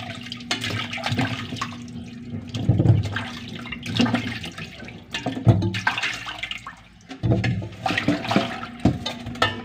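Water sloshing and splashing as peeled cassava roots are rubbed and rinsed by hand in a stainless steel bowl of water, with occasional knocks of the roots against the bowl.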